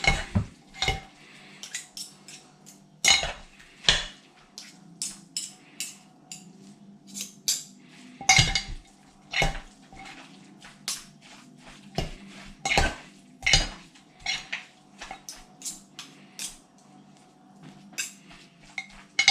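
Metal utensils clinking and scraping against the inside of a slow cooker's crock while shredded pulled pork is stirred through with sauce: irregular sharp clinks, some much louder than others.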